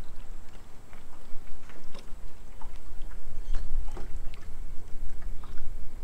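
Wind buffeting the microphone as a low, uneven rumble, with scattered light clicks and taps over it.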